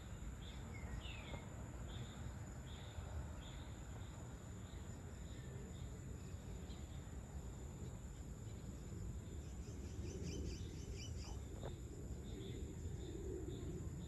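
Outdoor insect chirping, a short regular chirp repeating roughly twice a second over a low steady rumble. A brief bird call comes about a second in, and a quick rapid trill comes around ten seconds in.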